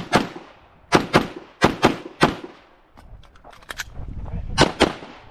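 Handgun fired rapidly in double taps during a practical-shooting course of fire: about four quick pairs of shots in the first two and a half seconds, a pause of about two seconds, then another pair near the end. Each shot carries a short echo.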